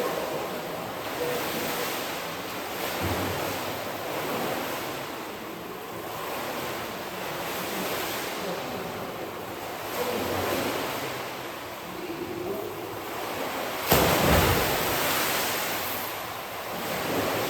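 Water splashing and churning in a swimming pool from a swimmer's strokes and kicks, with a louder splash about fourteen seconds in.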